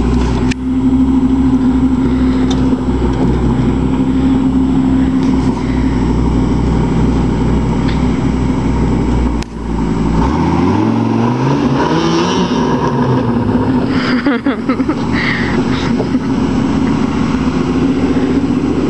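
Dodge Ram pickup's 8.0-litre V10 engine pulling steadily as the truck climbs a steep dirt hill. About halfway through the revs climb and then drop back, as the wheels spin and throw dust on the loose dirt.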